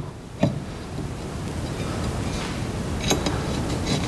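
Sharp metallic clicks as a new brake disc is seated on the wheel studs of a hub and a screwdriver is set into its retaining screw: one click about half a second in and a few more near the end, over a steady hiss.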